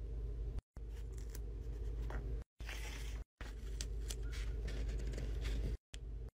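Paper-craft sounds in quick cuts: a marker scratching across paper, paper being handled, and scissors snipping paper, over a steady low hum and broken by several brief silences.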